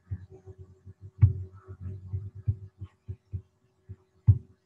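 Irregular soft low thumps with two sharper clicks, one about a second in and one near the end, over a steady low electrical hum. These are computer-desk handling noises picked up by the microphone while a link is opened with the mouse.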